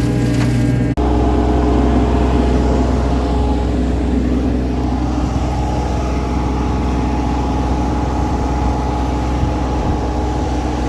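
Excavator's diesel engine running steadily under load while screening soil. About a second in the sound cuts abruptly and resumes with a changed engine note; rattling clicks before the cut stop there.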